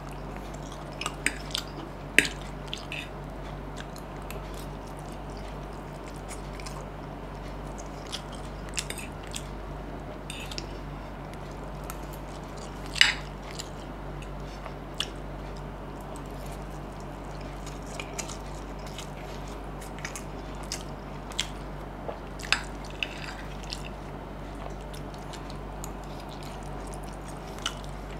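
Close-up mouth sounds of a person chewing a mouthful of vegetable cheese chowmein noodles and poached egg, with scattered sharp wet clicks, the loudest about halfway through, over a steady low hum.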